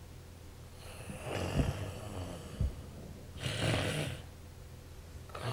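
A man snoring in bed, with slow, raspy snoring breaths about two seconds apart: two full snores, and a third beginning at the very end.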